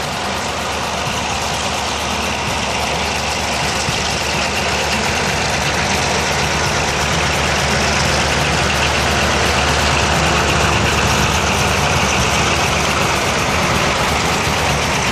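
Several diesel freight locomotives running together, their engines droning steadily and growing gradually louder as they approach and pull past.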